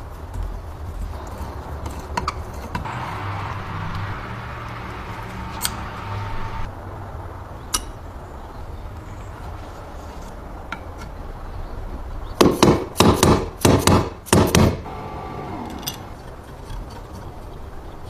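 Hand work on the metal parts of a stapler being restored: scattered clicks and clinks, then a run of about six loud, sharp knocks close together about two-thirds of the way through.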